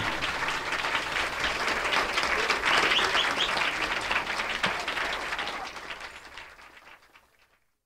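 Live audience applauding, dense clapping that fades out to silence near the end.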